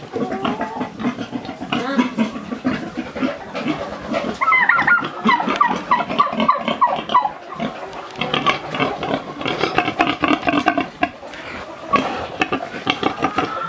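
Pigs grunting and calling in a dense, overlapping chorus, with chickens clucking among them.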